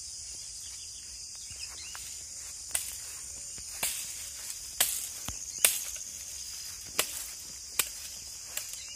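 Jurema branches cracking and snapping, about eight sharp cracks spread through the middle and later part, as thorny branches are pulled down and cut with a machete. A steady high drone of insects runs underneath.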